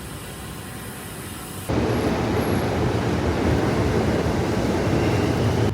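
Steady rumble of a commuter train. It jumps abruptly louder about two seconds in, with the noise heaviest in the low range.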